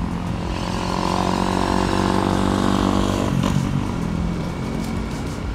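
A dirt bike engine accelerating, its pitch rising, then dropping sharply about three and a half seconds in before it runs on lower.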